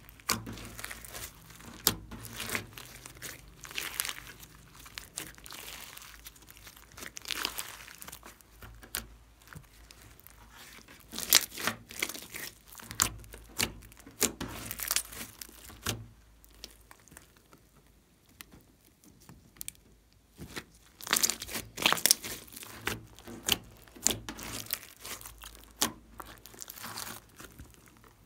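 Hands kneading and squeezing a large lump of glittery pink slime: sticky squishing with irregular crackles and pops. The crackling thins out for a few seconds past the middle, then picks up again.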